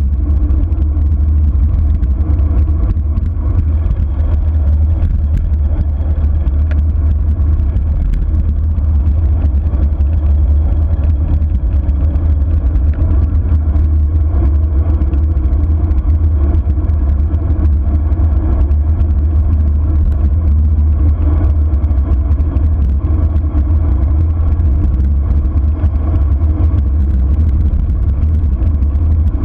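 Steady, loud wind rumble buffeting a camera microphone on a bicycle during a fast downhill descent.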